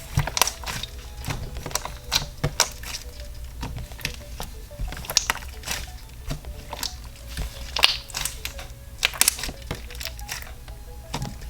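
Floam slime being squeezed and kneaded by hand: irregular crackles and pops as the foam beads are pressed, with faint background music.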